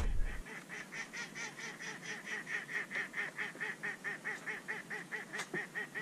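Waterfowl calling in a rapid, even run of short calls, about four or five a second, with one sharp click near the end.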